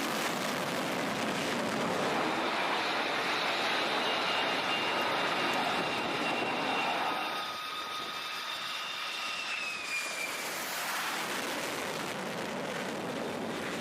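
Jet aircraft engines running: a steady rushing noise with faint high whining tones, easing a little about halfway through.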